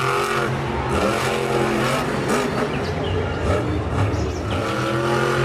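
Monster truck engine revving up and down as the truck drives on a dirt arena track, its pitch rising and falling repeatedly.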